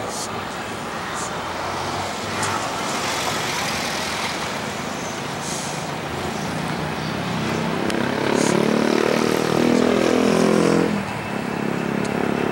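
Boeing 737-800's CFM56 turbofan engines at takeoff thrust during the takeoff roll: a loud, steady jet noise that builds as the airliner approaches, with a pulsing drone from about seven seconds in that drops off suddenly near the end.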